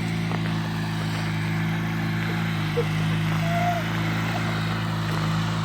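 Riding lawnmower engine running steadily, with a faint short call about three and a half seconds in.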